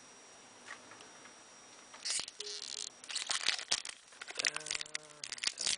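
Foil booster-pack wrapper crinkling and tearing as it is handled and ripped open, starting about two seconds in as irregular crackles. A brief low hum sounds under it about halfway through.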